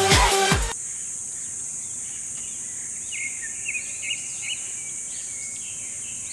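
Electronic dance music cuts off less than a second in. It leaves outdoor ambience: a steady high-pitched hiss, with a run of bird chirps in the middle.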